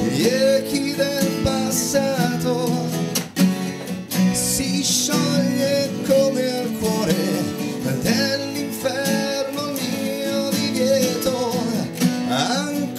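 Live acoustic band: several acoustic guitars strumming chords under a male voice singing sustained, held phrases in an Italian pop ballad.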